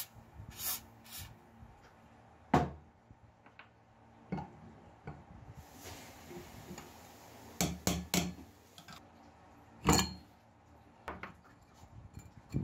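Two short hisses of spray lubricant squirted through a straw onto a rusted threaded hex fitting in a metal lamp base. These are followed by scattered sharp metallic clicks and knocks as a wrench grips and works the seized fitting loose, loudest a couple of seconds in and again about ten seconds in.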